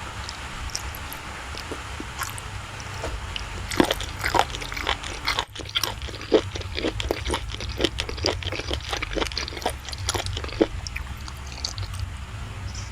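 Close-miked eating of soft, creamy cake: wet chewing and lip smacks, heard as many quick soft clicks, over a steady low hum.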